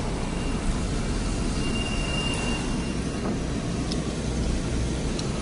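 Steady engine and road rumble of a car, heard from inside the cabin while it is driving.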